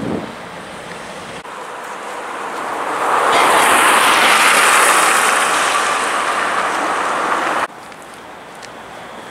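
City traffic noise. A rushing vehicle sound swells for a few seconds and then cuts off suddenly, leaving a lower, steady outdoor hum.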